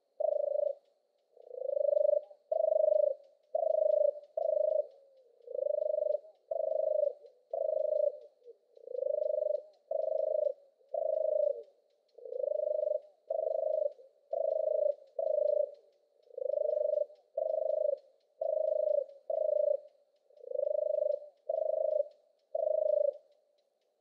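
European turtle dove's purring song: a long run of low purring notes, each about half a second long, given in groups of two to four with short pauses between groups.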